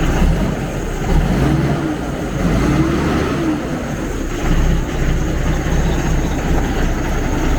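An engine idling with a steady low rumble. Two brief tones rise and fall over it, about a second and a half in and again around three seconds.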